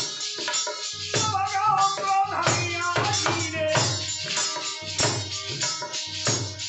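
Harmonium playing a melody over a steady hand-played dholak rhythm, with jingling percussion in a folk devotional ensemble.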